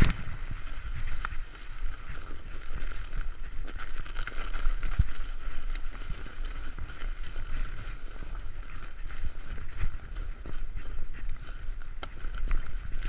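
Mountain bike ridden through snow: tyres crunching through the snow and the bike giving occasional knocks and rattles, with wind gusting on the microphone in an uneven low rumble.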